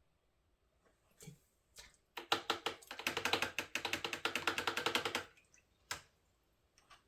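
A paintbrush tapped and rattled quickly against a hard container or palette: a run of sharp clicking taps, about ten a second, lasting about three seconds. Single taps come just before and after the run.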